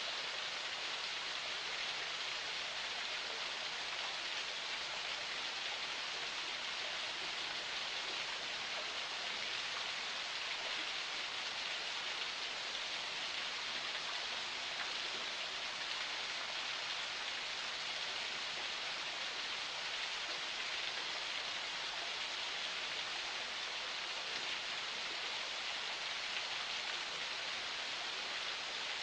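Forest spring water flowing, a steady even rush of running water with no change throughout.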